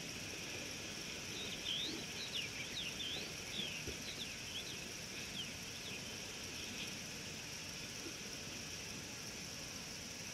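Steady, high-pitched insect drone of the bush, with a bird calling a quick series of about ten short sweeping whistled notes from about a second in until about seven seconds in.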